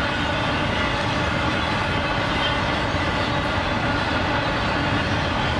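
Union Pacific intermodal freight train passing: the steady noise of steel wheels on rail from trailer-carrying flatcars and double-stack container cars, even throughout.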